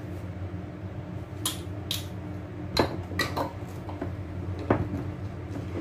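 A metal teaspoon and glass jars clinking and knocking against a ceramic bowl and the counter as sugar is spooned in: about half a dozen sharp, separate clinks, over a low steady hum.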